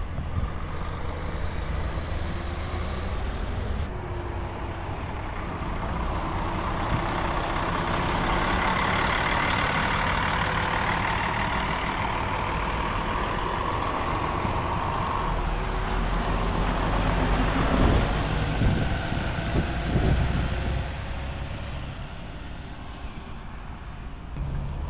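Route buses driving through a bus terminal: a steady low engine drone with tyre and road noise that builds to its loudest about 18 to 20 seconds in, with a few brief knocks, then eases off.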